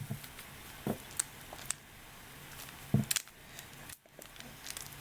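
Plastic mirror cube being turned by hand: scattered short clicks and clacks as its layers are twisted, at irregular intervals, the strongest about three seconds in.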